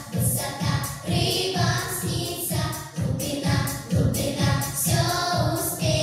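A recorded children's song playing: voices singing a melody over an accompaniment with a steady beat.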